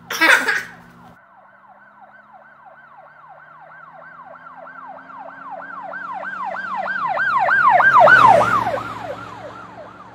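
Emergency-vehicle siren in a fast yelp, about four wails a second, growing louder, peaking near the end and then fading as it passes with a slight drop in pitch. A short loud burst of noise comes at the very start.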